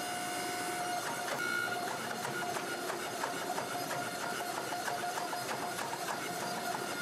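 Hydraulic forging press running with a steady pump whine while its flat dies squeeze a hot Damascus billet, with scattered small crackles as scale breaks off the steel.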